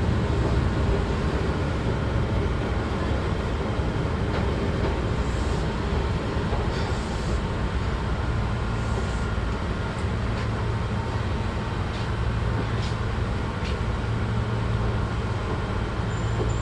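Keihan Ishiyama-Sakamoto Line train running on the rails, heard from inside the car: a steady low rumble with a few sharp clicks.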